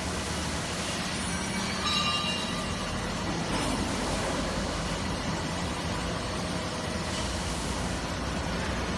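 Industrial machine with electric motors running: a steady mechanical hum and whir, with a brief high whine about two seconds in.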